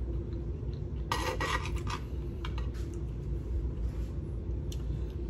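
Metal cutlery scraping and clinking against a dish of food, a cluster of strokes about a second in, then a few lighter clinks. A steady low hum runs underneath.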